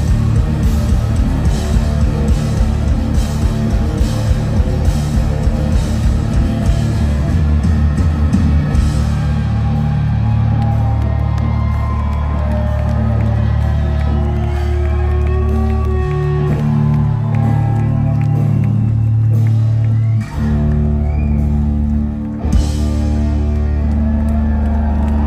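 Live rock band playing electric guitars, bass guitar and drums. The drums stop about nine seconds in, and the guitars and bass hold long, droning notes with no beat.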